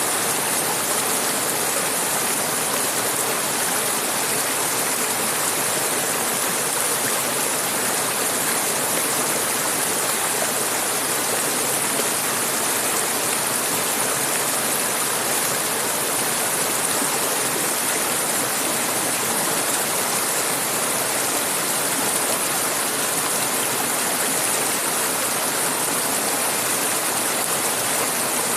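Clear mountain river flowing over rocks: a steady, even rush of water with a bright hiss.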